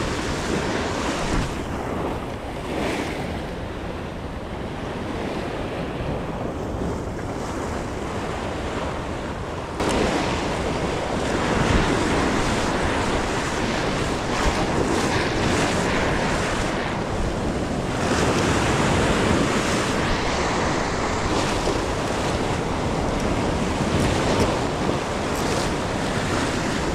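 Ocean surf washing and breaking against a rock ledge, with wind on the microphone; the noise steps up louder about ten seconds in.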